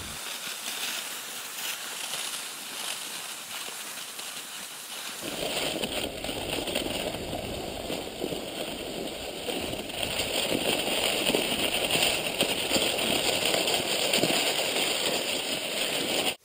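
Cross-country skis sliding along groomed tracks on snow, heard from a camera carried by the skier: a thin hiss at first, then from about five seconds in a fuller, steady rushing and scraping noise that stops abruptly.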